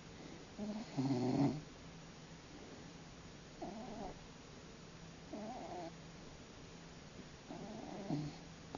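Large domestic cat snoring in its sleep: four snores about two seconds apart, the first, about a second in, the loudest.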